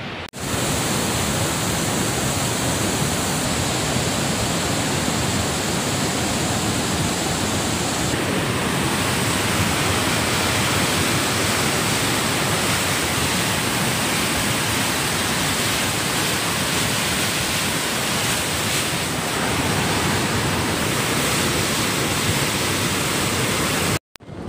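Flooded mountain river in spate: a muddy torrent rushing over rocks with a loud, steady roar of water. It cuts off briefly near the end.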